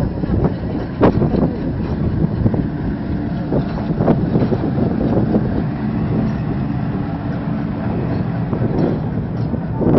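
Pakistan Railways diesel locomotive running past with a steady engine drone. Wheels click and knock over the rail joints, and wind buffets the microphone.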